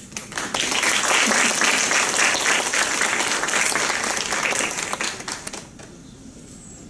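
Audience applauding: dense clapping that starts at once, holds for about five seconds and then dies away.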